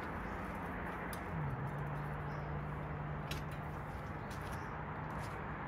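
A few small sharp clicks from handling a gas camping lantern on its canister, over a steady low background hum.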